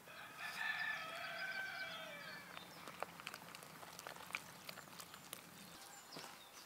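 An animal call lasting about two seconds, falling slightly in pitch at the end, followed by scattered light clicks.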